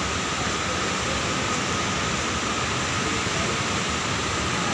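Steady rushing background noise inside an aquarium hall, with no distinct events.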